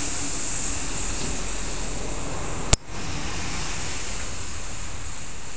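Steady outdoor background hiss with no clear source, broken once by a single sharp click about three seconds in.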